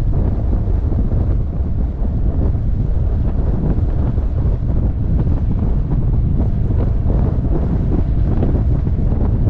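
Steady wind buffeting the microphone of a camera mounted on a moving motorcycle, a loud low rumble that covers the bike's own engine.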